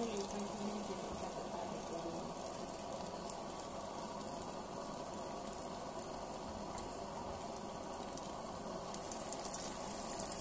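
Spoonfuls of tomato-onion vada batter deep-frying in hot coconut oil in a pan: a steady bubbling sizzle.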